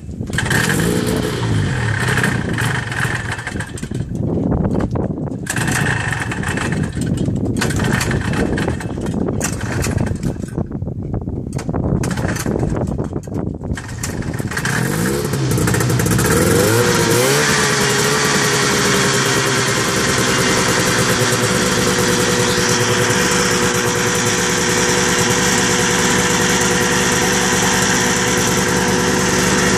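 1975 Arctic Cat Cheetah's 340 two-stroke snowmobile engine, running on a freshly rebuilt Walbro WF-8 carburetor, running rough and uneven with its speed surging for about the first half. About halfway it is revved up and down, then settles into a steady idle. The owner says the machine still struggles after the rebuild.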